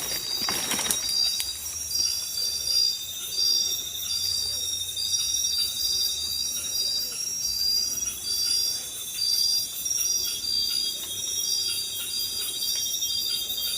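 Chorus of night insects: a steady high whine with a repeating pulsed trill above it. A short noise comes about half a second in.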